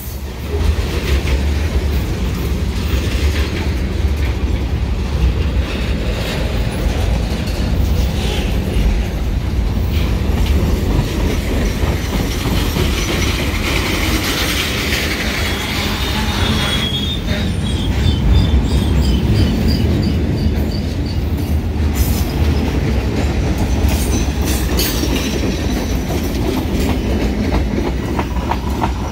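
Freight cars of a Great Lakes Central Railroad train rolling past close by: a steady heavy rumble with wheels clacking over rail joints, and a faint high squeal of wheels around the middle.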